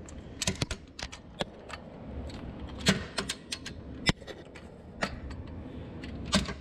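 Irregular sharp metallic clicks and taps, some single and some in quick little clusters, from a ratchet wrench on a socket extension being worked to loosen a cylinder head bolt a few degrees at a time.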